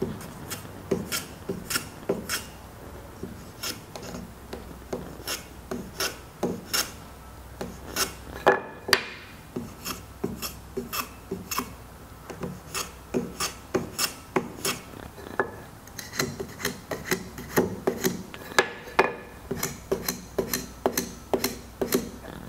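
Japanese kiwa-ganna plane chamfering the edges of wooden tenons: a quick run of short rasping shaving strokes, about two a second.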